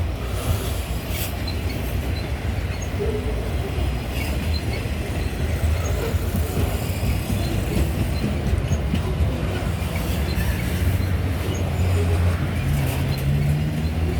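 Loaded grain hopper wagons of a freight train rolling past with a steady low rumble and rattle. Near the end a deeper engine note comes in and rises in pitch.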